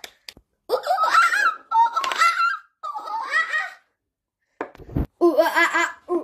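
A person laughing in several bursts, ending in a run of evenly paced 'ha-ha-ha' laughs. A short low thump comes shortly before the last run.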